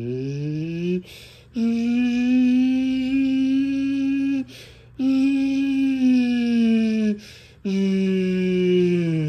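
Federal Signal Thunderbolt 1000B blower-supercharged chopper siren sounding a steady Alert tone. The tone drops out abruptly for about half a second three times, and its pitch rises back from a sag at the start and begins to sag again near the end.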